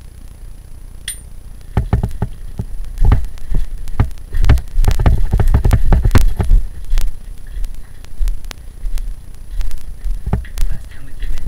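Handling noise from a handheld camcorder: low rumbling thumps and sharp clicks as it is jostled, densest and loudest from about two to seven seconds in, with scattered bumps after that. A brief high squeak falls in pitch about a second in.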